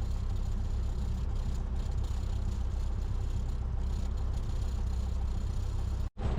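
Cessna 172's single piston engine and propeller running steadily, heard as a low drone inside the cabin. The sound cuts out completely for a split second near the end.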